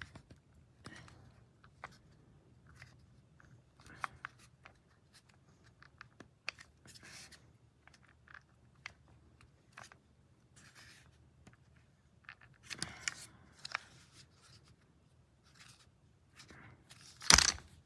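Small handling sounds at close range: scattered soft clicks and rustles, with a louder rustling burst near the end.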